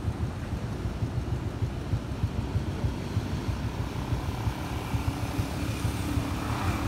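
Wind buffeting a chest-mounted phone's built-in microphone on a moving bicycle, over street traffic. A motor vehicle's engine comes in gradually over the second half, growing louder toward the end.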